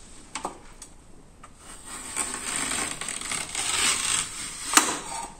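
A zucchini pushed along the blade of a plastic mandoline slicer, cutting a long thin slice. It makes a scraping, rasping stroke for about two seconds, then gives a sharp click near the end.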